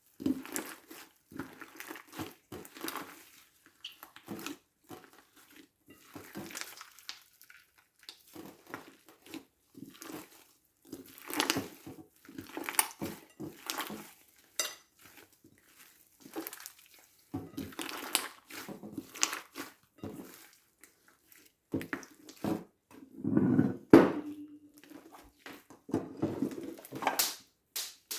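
Slime being squeezed and kneaded by hand: irregular sticky clicks, crackles and squelches, with a louder squelch about three-quarters of the way through.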